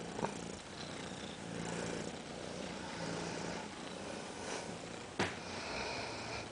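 A domestic cat purring, in slow waves, with two sharp clicks, one just after the start and one about five seconds in.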